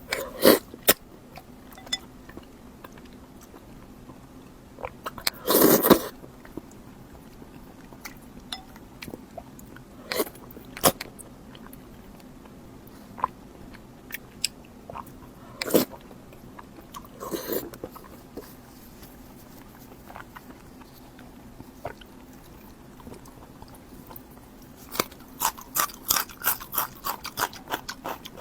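Close-up eating sounds: scattered bites and wet chewing, with a louder bite about six seconds in and a quick run of crisp crunches near the end.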